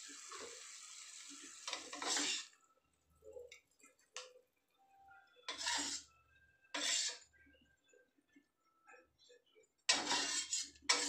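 A metal spatula scraping and knocking against a stainless steel wok as green beans are stir-fried, in several short bursts with quiet pauses between. A steady hiss fades out about two seconds in.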